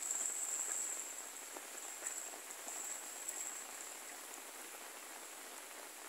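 Sambar deer splashing as it rises and stands in a shallow muddy puddle, the water noise strongest in the first second and fading after. A steady high insect buzz runs over it.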